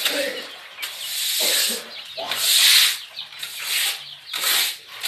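Repeated rasping strokes of the chicken coop floor being scraped clean, a little over one a second, the loudest near the middle.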